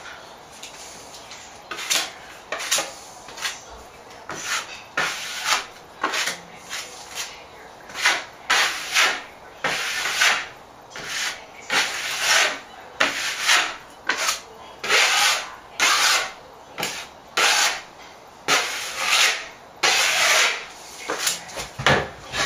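Dried plaster patch on a ceiling being sanded by hand with abrasive paper: a run of short strokes, about one or two a second, starting about two seconds in.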